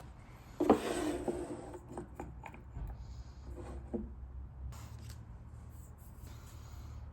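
A few light knocks and clicks of small wooden pieces being handled, the loudest a sharp knock under a second in, over a steady low hum.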